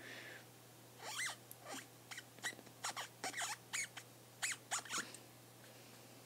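Faint handwriting with a stylus on a tablet surface: a quick series of short squeaks and scratches, one per pen stroke, from about a second in until about five seconds in.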